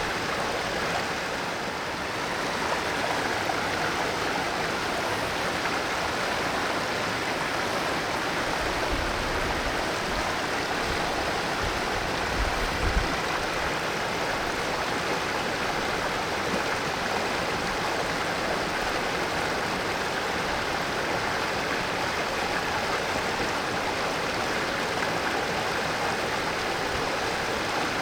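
Mountain valley stream flowing steadily over rocks, a continuous rushing and burbling of water.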